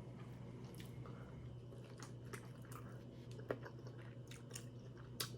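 A person eating close to the microphone: soft chewing with scattered small clicks and crunches, the sharpest about three and a half seconds in and another near the end.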